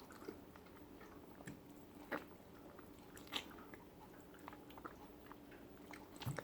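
Faint, close mouth sounds of someone chewing a mouthful of food: scattered soft clicks and smacks, the clearest about two seconds and three and a half seconds in.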